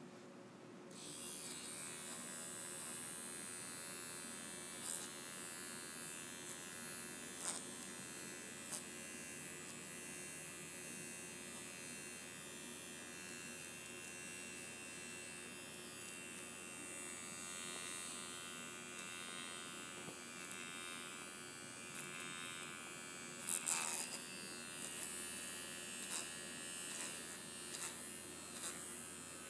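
Vibrating rose quartz facial roller buzzing steadily as it is rolled over the face, switched on about a second in. A few light handling clicks, with a louder cluster of clicks a few seconds before the end.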